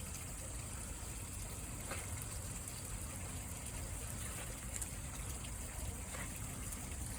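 Cicadas singing in a steady, high, continuous drone, over a low rumble.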